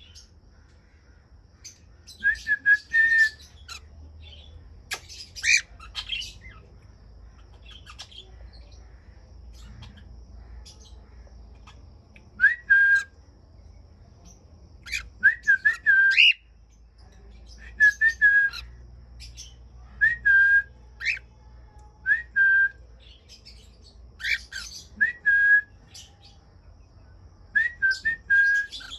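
Cockatiels calling: short whistled contact calls, each a quick upward sweep settling on a brief held note, in clusters every two or three seconds, some mixed with harsher squawks.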